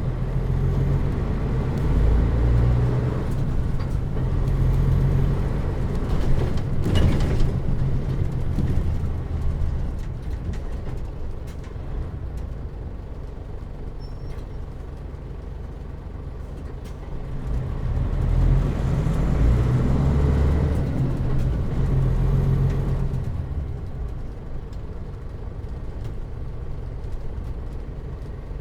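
Isuzu Erga KL-MP37JM city bus heard from inside the cabin, its diesel engine and automatic transmission pulling away. The engine swells twice with a faint gear whine and eases off between. The air conditioning is off, so the engine is heard cleanly.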